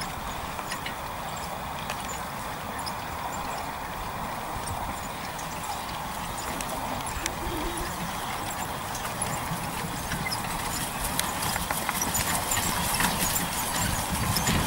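A horse trotting on grass in harness, pulling a four-wheeled carriage: hoofbeats mixed with many small rattles and clicks from the carriage and harness. It grows louder near the end as the horse comes closer.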